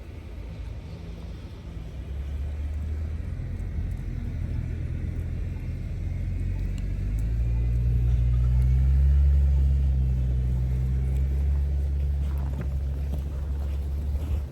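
Low engine rumble of a motor vehicle, growing louder to a peak a little past the middle and then easing off, as a vehicle passes or draws near.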